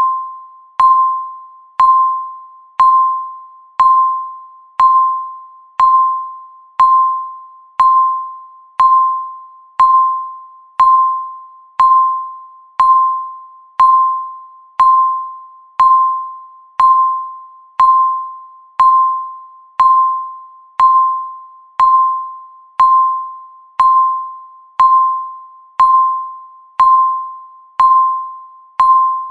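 Countdown timer sound effect ticking off the seconds: a single bell-like ding, struck once a second and fading out before the next.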